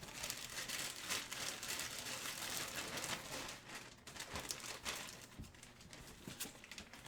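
Plastic and foil wrapping crinkling and rustling as trading card packs and cards are handled, with a few light clicks and taps.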